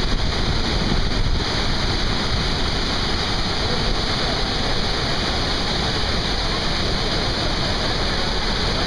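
Devil's Throat waterfall at Iguazu Falls: a steady, dense rush of a massive volume of falling water.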